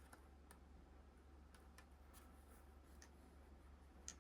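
Near silence with a low steady hum and a few faint, scattered clicks.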